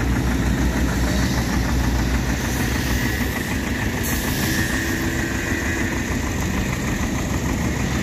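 Diesel engine of a bitumen distributor (tack coat sprayer) truck running as it moves along spraying the road; its low engine note weakens after about three seconds.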